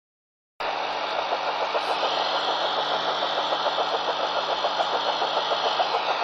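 Shortwave radio receiver tuned to 9195 kHz, playing a fast, regular tapping over a bed of static hiss, several taps a second. It cuts in sharply about half a second in. It is an unidentified pulsed signal that the listener half-jokingly likens to HAARP or the Russian Woodpecker over-the-horizon radar.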